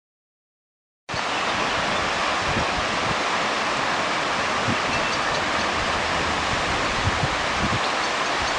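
Silence for about a second, then a steady, even rushing noise outdoors, with no distinct engine or train sound standing out of it.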